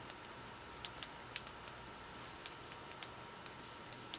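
Faint, irregular clicks of typing a password, about two or three taps a second.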